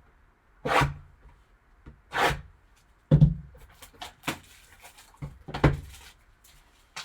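Handling sounds as a sealed hockey card box is worked open: about six knocks and scrapes of the cardboard box against the table, with rustling from the seal, the loudest a knock a little over three seconds in.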